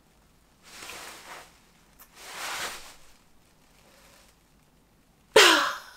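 Two soft rushing sounds about a second apart, then a sudden loud vocal outburst from a man near the end, its pitch falling.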